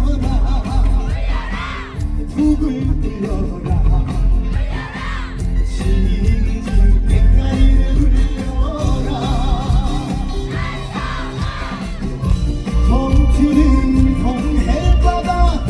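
Loud live concert music with a heavy bass beat and held instrumental melody lines, with the crowd cheering and screaming over it several times.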